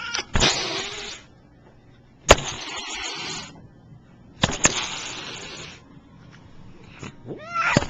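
A cat hissing three times. Each hiss lasts about a second and starts with a sharp spit.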